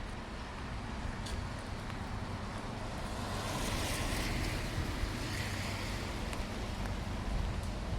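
Rain-soaked outdoor ambience: a steady rushing hiss with a low rumble, swelling louder about three seconds in and easing again after about six seconds.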